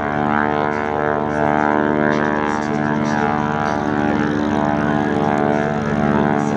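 Boeing Stearman biplanes' radial engines and propellers droning steadily in flight.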